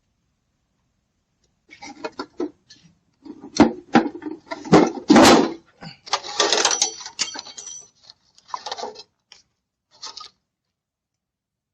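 A series of sharp knocks, clatters and rattles of hard objects, loudest about four to five seconds in, thinning out near the end.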